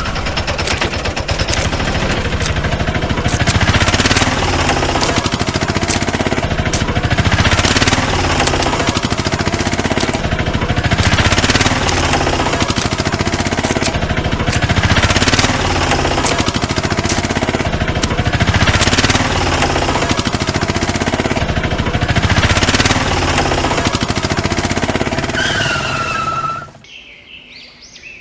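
A fast, steady mechanical rattle, like a small engine or motor running. Near the end it gives way to a short falling tone and then stops abruptly.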